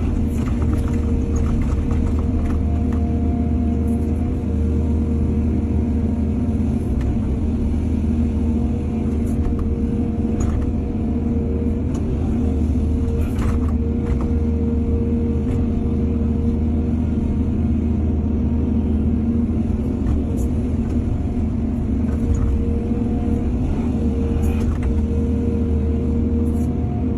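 Excavator's diesel engine running steadily under load, with a few short metallic knocks from the working machinery.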